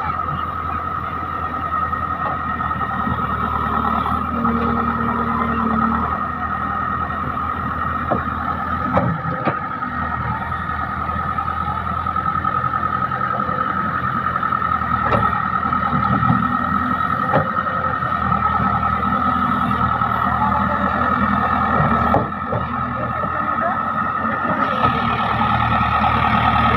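JCB 3DX backhoe loader's diesel engine running steadily under work, with a steady high whine over the low engine rumble and a few short knocks.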